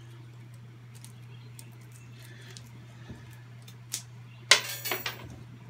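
Fingers working at the shrink-wrap packaging of a motorcycle chain master link: a few faint clicks, then a loud crinkle of plastic wrap for under a second near the end. A steady low hum runs underneath.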